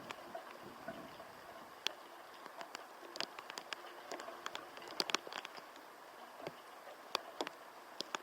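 Typhoon rain pattering: irregular sharp taps of drops over a steady hiss, thickest about halfway through.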